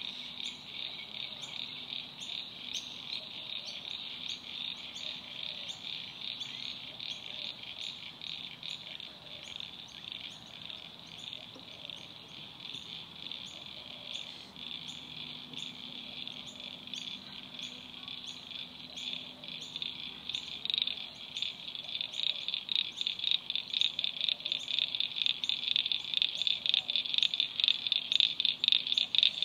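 Wetland chorus of calling animals: a high, rapidly pulsing trill that repeats steadily and grows louder in the last third.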